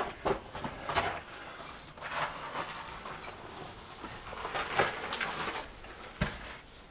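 Irregular crunching, scraping and clicking of someone climbing over loose rock and a wooden ladder, with a sharper knock about six seconds in.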